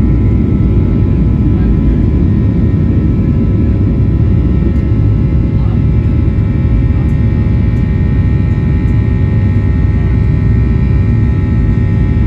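Boeing 737-800's CFM56-7B jet engines heard inside the cabin at high thrust: a steady low roar with a buzzing set of steady tones over it, the fan 'buzzsaw' noise typical of a climbing jet.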